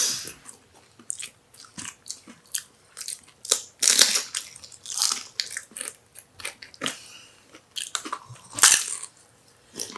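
Crisp, dry puri shells (panipuri, served without water) being bitten and chewed, with irregular crunches, loudest about four seconds in and again near the end. A short hissing burst comes right at the start.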